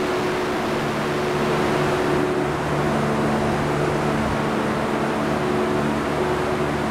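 Chilling-room machinery of a poultry processing plant, with carcasses moving on the overhead conveyor, running with a steady drone and a low hum of several held tones.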